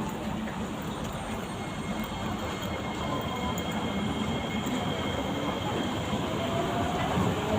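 MRT train running with a steady rumble that grows louder. A motor whine rises in pitch near the end.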